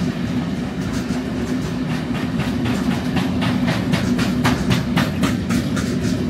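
Freight train rolling past at speed: a steady rumble of wheels on rail, with wagon wheels clicking rapidly over rail joints, the clatter growing denser partway through.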